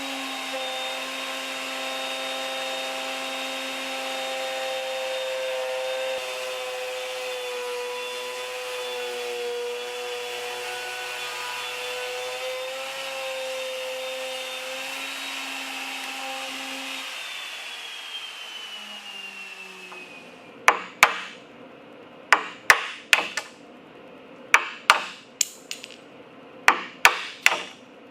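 A woodworking power tool's motor runs at a steady whine for about 17 seconds and then winds down. After it stops, sharp hammer blows follow, mostly in quick pairs.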